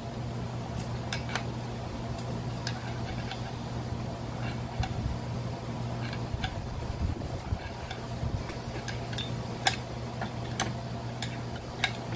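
Irregular metallic clicks and taps of a hand tool working on a brush cutter's small two-stroke engine as it is taken apart, over the steady hum of an electric fan.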